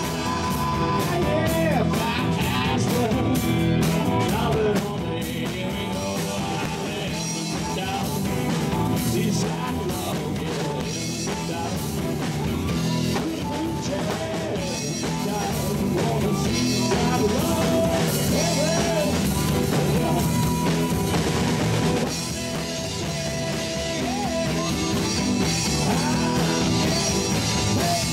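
Live rock-and-roll band: a man singing lead over electric guitar and a drum kit, playing continuously.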